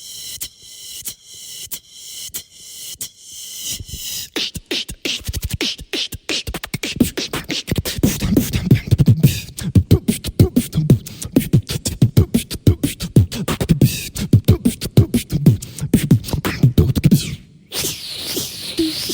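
Solo human beatboxing: a fast rhythmic run of vocal kicks, snares and clicks. It starts thin and high-pitched for the first few seconds, then deep bass hits come in and build into a dense beat, with a brief break near the end.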